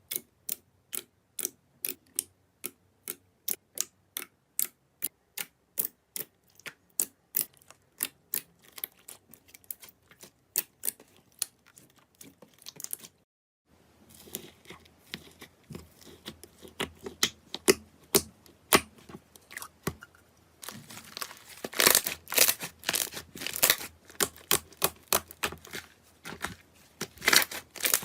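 Slime being worked by hand. First comes a steady run of sharp clicking pops, about two or three a second. After a short break about halfway through, there is denser crackling and crunching that gets louder about three quarters of the way in.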